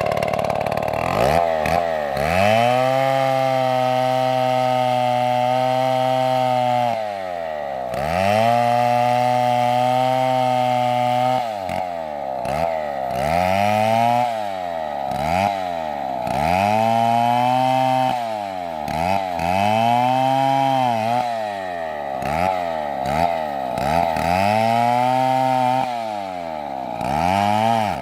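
Two-stroke chainsaw cutting wood. The engine is held at high revs for several seconds twice, then eased off and opened up again in a string of quicker revs, about one every two seconds.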